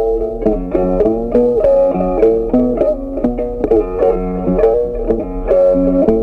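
Background music: a plucked-string instrument, guitar-like, playing a steady stream of short picked notes, several to the second.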